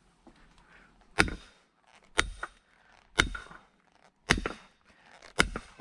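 Five sharp strikes about a second apart, each ringing briefly: a hammer driving a steel wedge to split a round of firewood.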